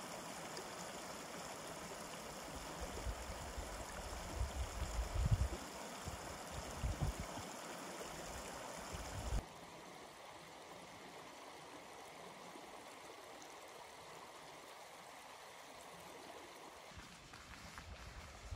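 Snowmelt stream running over rocks: a steady rushing hiss, with a few low bumps in the first half. About nine seconds in, the sound cuts to a quieter, steadier rush.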